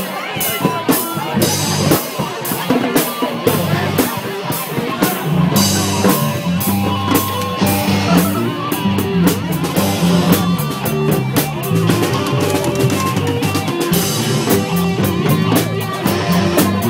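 High school band playing a tune in the stands: horns and woodwinds over a drum kit keeping a steady beat, with a low line of notes moving underneath.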